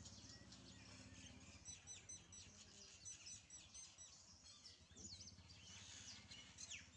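Faint birds chirping in the background, with a quick run of short, repeated high chirps about two to four seconds in, over a low steady hum.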